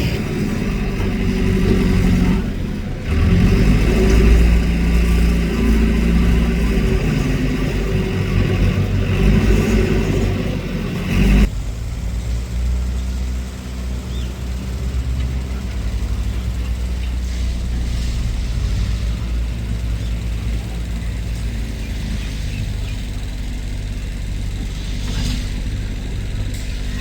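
Motor vehicle engine running with a strong low rumble, its pitch shifting. About eleven seconds in it cuts abruptly to a quieter, steady rumble.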